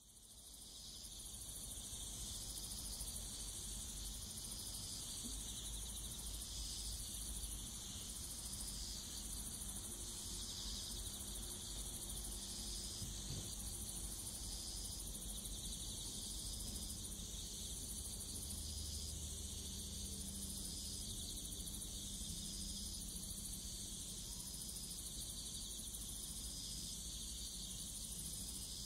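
Evening chorus of autumn crickets and other insects: a dense, steady high chirring, with one voice in it swelling and dropping about every second and a half.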